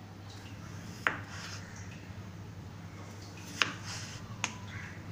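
Kitchen knife slicing through a peeled potato and knocking on a bamboo cutting board: three sharp knocks, one about a second in and two close together near the end, over a steady low hum.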